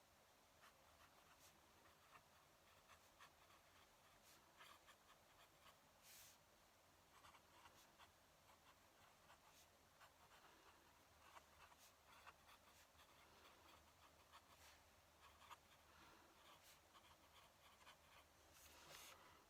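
Faint fountain pen nib scratching across paper in short, irregular strokes.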